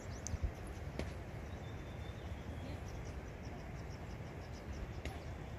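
Outdoor rural ambience: a steady hiss with a low rumble, over which faint high chirps repeat about four times a second, with a couple of faint clicks about a second in and near the end.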